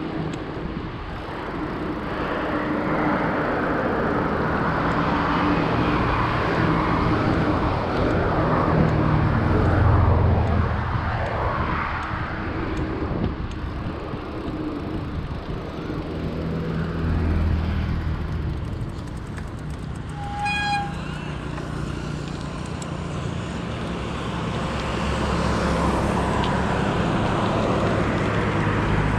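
Road traffic: motor vehicles' engines and tyres passing, swelling and fading several times. About two-thirds of the way through comes one short horn toot.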